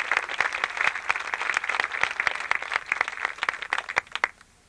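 Audience applauding, a dense patter of many hands clapping that thins out and stops a little after four seconds in.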